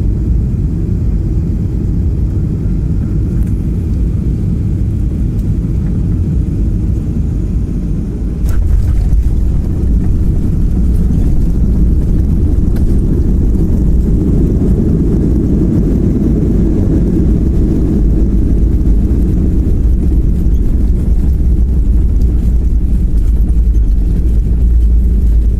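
Airliner cabin noise during landing: a steady low rumble, a sharp thump about a third of the way in as the wheels touch down, after which the rumble of the landing roll is louder.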